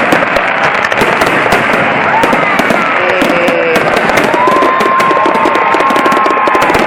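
Firecrackers and fireworks going off in a loud, continuous crackle of rapid sharp pops. A held high-pitched tone runs over the crackling for about two seconds in the middle.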